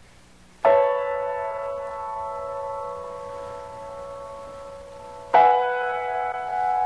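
Instrumental song intro: two chords on a keyboard with a bell-like tone, struck about four and a half seconds apart, each left to ring and slowly fade.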